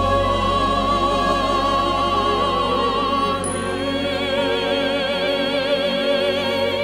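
A young soprano singing long, high operatic notes with vibrato, moving to a new note about three seconds in, over a sustained orchestral accompaniment with low bass notes.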